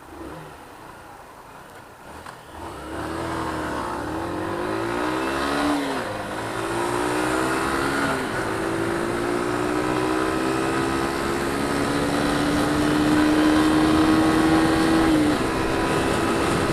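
Single-cylinder 125cc motorcycle engine accelerating hard through the gears on a 0-to-60 run. The revs climb and drop back at each gear change, three times, with a long slow climb in the last gear before easing off near the end.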